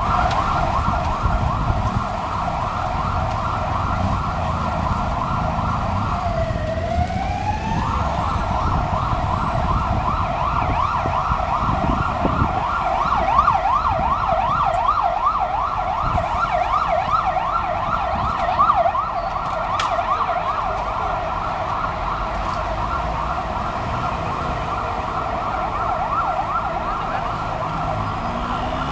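Emergency vehicle siren sounding a rapid yelp, a fast repeated rise and fall in pitch that goes on steadily; about six seconds in it breaks into one slow dip and climb before the fast yelp resumes. City traffic rumbles underneath.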